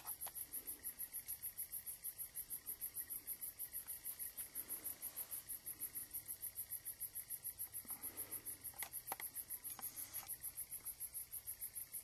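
An insect chirping in a steady, high-pitched rhythm of about six chirps a second.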